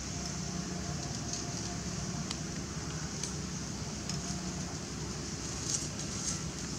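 Steady outdoor background noise: a low rumble under an even high-pitched hiss, with a few faint clicks and a small cluster of them near the end.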